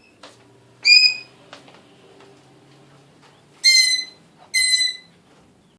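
Congo African grey parrot whistling: three short, steady, high notes, one about a second in and two close together near the end.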